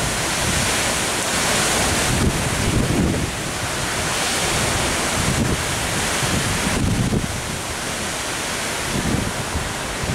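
Strong, gusty storm wind blowing through garden trees and bushes, swelling and easing with each gust, with wind buffeting the microphone in uneven low rumbles.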